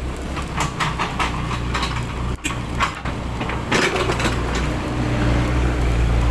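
An engine running steadily, with irregular clattering and knocks over the first few seconds. The engine grows louder about two thirds of the way through.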